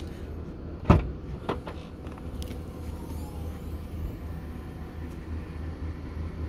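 Nissan Juke tailgate latch releasing with one sharp click about a second in, followed by a couple of lighter clunks as the tailgate lifts open, over a steady low rumble.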